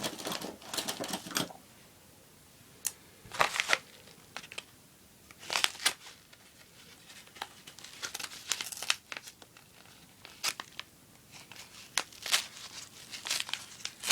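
Mailing envelope being torn and crinkled open by hand, in irregular bursts of rustling and ripping.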